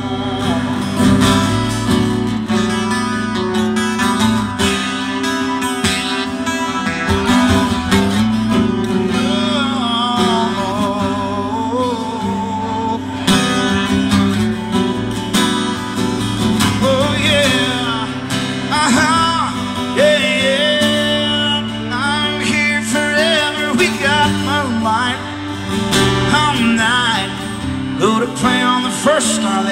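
Acoustic guitar played live in a country song's instrumental break, with steady low notes under picked and bent lead lines that waver in pitch in the second half.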